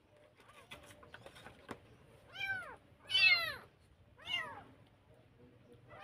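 Tiny kitten meowing three times, each call rising then falling in pitch, the middle one the loudest, with a fourth call starting at the very end. A few light clicks come before the first meow.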